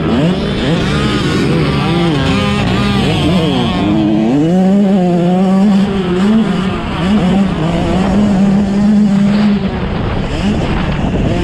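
Motocross dirt bike engines racing: the engine notes rise and fall again and again as the bikes rev up, shift and back off. One engine holds a steady high note for a couple of seconds and then drops off near the end.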